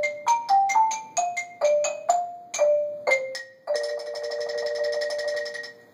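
Xylophone duet: struck single notes, about three a second, each ringing briefly, then about four seconds in a fast roll on two notes held for nearly two seconds as a final chord before it stops.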